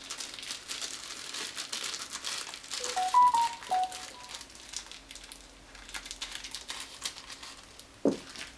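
Plastic wrapping crinkling as it is handled, with a short melodic chime of a few notes, like a phone's notification tone, about three seconds in.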